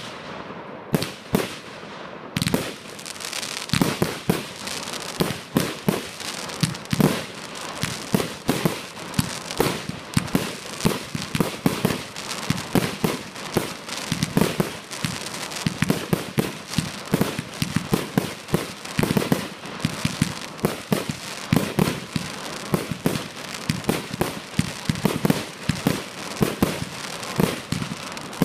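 Professional fireworks display: aerial shells launching and bursting in a rapid, continuous series of bangs and pops with crackling throughout. A few separate bangs come first, then from about two seconds in the shots come thick and fast.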